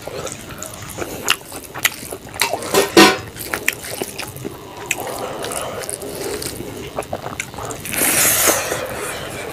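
Close-up sounds of eating rice and fish curry by hand: wet, sticky clicks and smacks of fingers mixing rice and of lips, with one sharp smack about three seconds in. A louder hissing slurp follows about eight seconds in, as a handful goes into the mouth.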